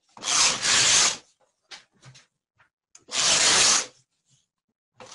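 Knitting machine carriage pushed across the needle bed twice, each pass a rasping slide lasting about a second, knitting a row. A few light clicks come between the passes, and a third pass starts at the very end.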